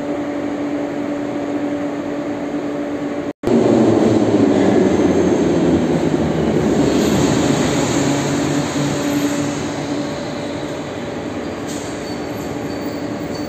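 An 81-717/714-series metro train running on the rails, with a steady hum. After a sudden break about three seconds in, a much louder rumble of wheels and rails comes in and slowly eases off.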